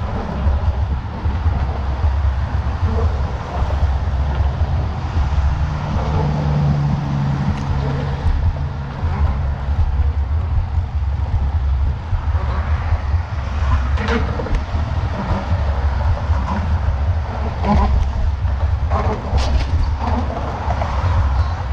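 Wind buffeting the microphone during a road bike ride, a loud steady low rumble, with a passing vehicle's engine hum from about six to nine seconds in and a few sharp clicks later on.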